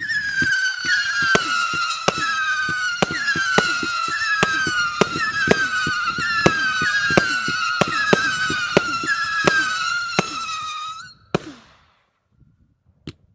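Vivid Pyrotechnics Bedlam 100-shot firework cake firing, about two shots a second, with loud whistles that keep falling in pitch over the shots. It stops about eleven seconds in, and a few scattered cracks follow near the end.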